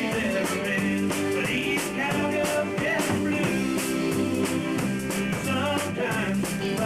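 A small band rehearsing a rock-and-roll song: guitar and drum kit with a steady beat, and a singer's voice over them.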